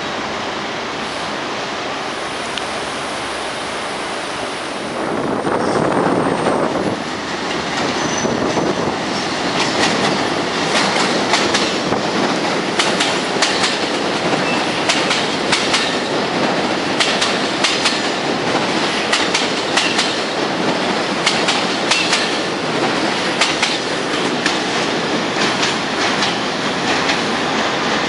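Long Island Rail Road M-3 electric multiple-unit train running through an elevated station without stopping: a steady rumble that grows louder about five seconds in, then rapid, repeated clacking of wheels over rail joints as the cars pass.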